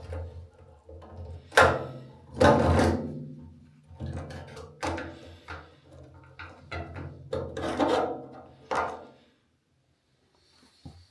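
Scraping and knocking of metal parts as an old fuel tank sender unit is worked loose and lifted out of a petrol tank: a run of loud clunks and rubs that stops abruptly about nine seconds in.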